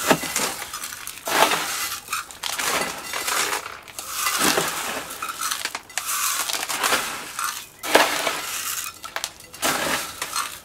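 Gritty granular bonsai substrate being scooped with a metal scoop and poured into a plastic bonsai pot around a ficus's roots: a rattling, crunching trickle of grit that comes in about half a dozen scoopfuls with short pauses between them.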